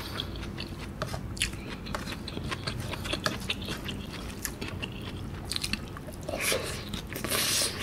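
Close-miked eating sounds: a person chewing a mouthful of rice and coconut-milk curry eaten by hand, with many small irregular clicks and wet mouth noises, and a louder noisy stretch near the end.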